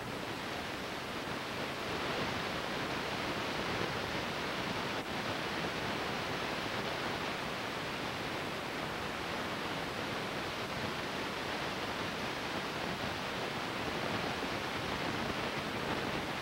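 Steady hiss with no other sound in it, apart from a faint click about five seconds in.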